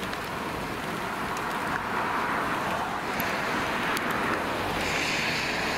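Steady rushing noise of wind and rain heard from inside a vehicle, with a few faint ticks.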